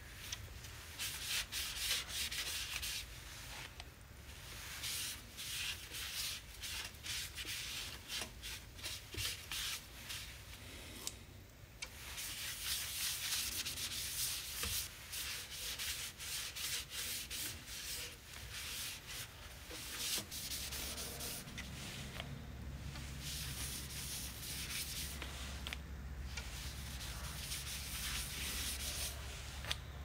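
Sandpaper rubbing against burl wood spinning on a wood lathe, a hissing scratch in repeated strokes that breaks off briefly a few times. A low steady hum from the lathe runs underneath and grows stronger in the second half.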